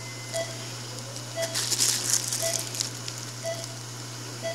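Crinkling of the clear plastic sterile sleeve on an ultrasound probe, for about a second and a half in the middle. Underneath, a patient monitor gives a short beep about once a second over a steady low hum.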